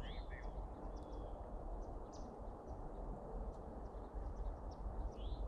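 Steady low rumble of wind on the microphone, with a few short rising bird chirps, one at the start and another near the end.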